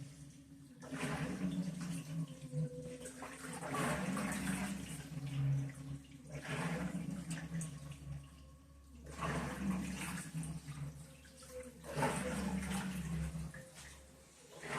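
Top-load washing machine agitating a wash load, with water sloshing in surges about every three seconds over a low steady hum.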